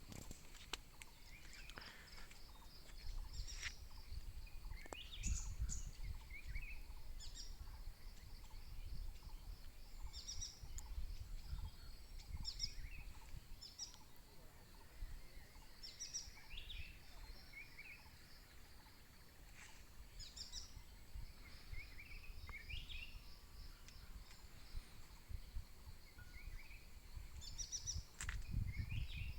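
Birds chirping and calling now and then over a steady, high insect trill, with a low rumble of wind on the microphone that swells and fades.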